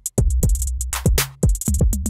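Electronic drum loop with 808 kicks that drop in pitch, held 808 bass, and crisp hi-hat and clap hits. It is played through a saturation effect that makes the 808s sound fuller and more saturated. The loop restarts after a brief gap right at the start.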